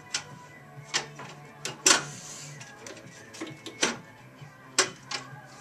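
About seven sharp knocks and clicks at uneven intervals, the loudest about two seconds in: parts being handled and set down into a Nelson waterer during assembly.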